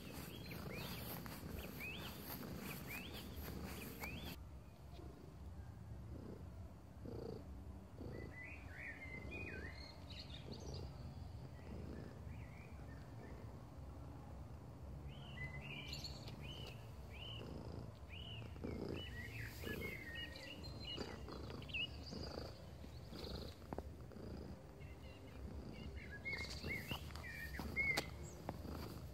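Tabby cat purring close to the microphone, a steady low rumble, with small birds chirping in short bursts in the background. A short knock comes near the end.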